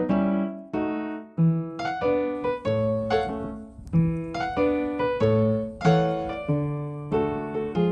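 Background piano music: notes and chords struck one after another, each ringing and dying away.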